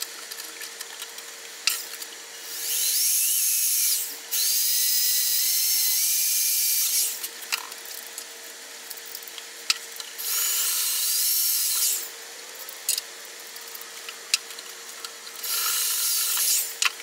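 Electric drill boring a hole through a metal engine-mount bracket, running in four bursts with a high whine whose pitch shifts as the bit cuts. The hole is drilled in stages with 3/16, 5/16 and 3/8 inch bits. Small clicks and knocks fall between the bursts.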